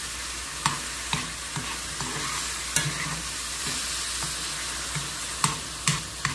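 Diced pears sizzling as they cook down in a frying pan, stirred with a metal spoon that clicks sharply against the pan several times.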